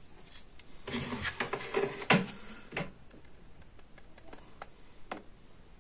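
Handling noise of a plastic syringe and the metal mechanism of an old stapler being worked together by hand: a rustling clatter with a sharp click about two seconds in, then a few scattered light ticks.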